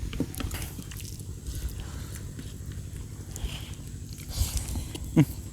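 People chewing and biting food, with soft irregular mouth clicks and crunches. A brief voice sound comes about five seconds in.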